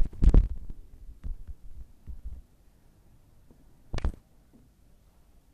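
Soft low thumps and bumps of kittens wrestling on a cushioned couch, loudest in a quick cluster at the start, with one sharper knock about four seconds in.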